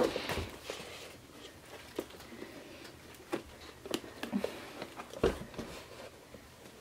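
Handling noise from a cardboard box and a stack of printed cards: light taps, clicks and rustles as the box is opened and the cards are slid out, with a sharper click at the start and a dull knock about five seconds in.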